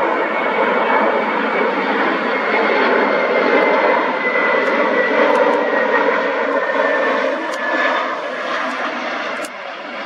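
Twin-engine jet airliner landing: a steady jet-engine rush with a faint high whine that slides a little lower. The noise eases slightly near the end as the aircraft touches down.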